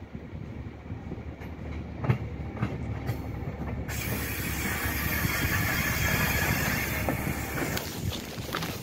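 Rail maintenance motor car running along yard tracks and passing close beneath, its rumble growing louder. A few sharp clicks come early on, and a strong steady hiss sets in suddenly about four seconds in.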